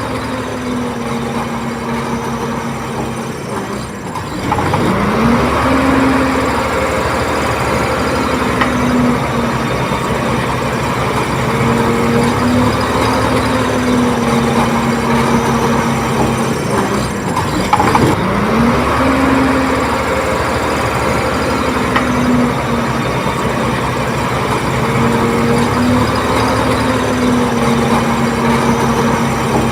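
Diesel engine of a Komatsu D30P bulldozer running steadily under load. Twice, about four seconds in and again past the middle, the engine note drops and then climbs back up as it revs, and it runs louder after the first rise.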